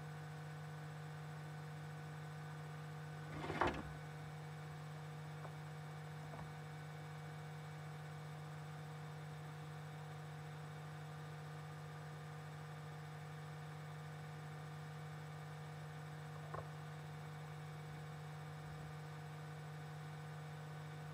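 Steady electrical mains hum made of several fixed tones, with one sharp knock about three and a half seconds in and a faint click later on.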